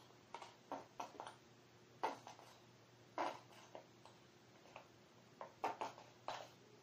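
Squeezed plastic glue bottle sputtering out glue and air from its nozzle in short, faint squirts at uneven intervals.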